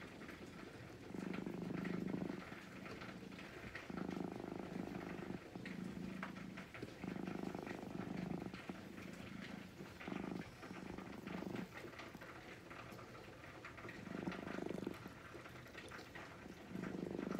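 Orange-and-white cat purring while being stroked, in low swells about a second long with short pauses between them.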